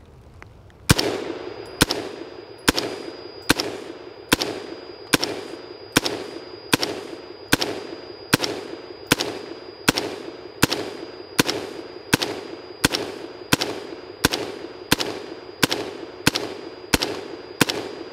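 Brownells BRN-Proto AR-15 replica rifle in 5.56 fired semi-automatically with M193 ball, a steady string of single shots at a little over one a second, starting about a second in, each shot sharp with a short ringing tail.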